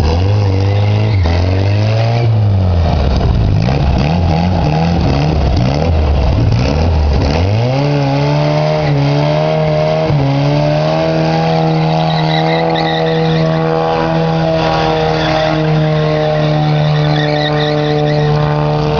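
A racing vehicle's engine revving up and down for the first few seconds, then climbing about seven seconds in and held at steady high revs.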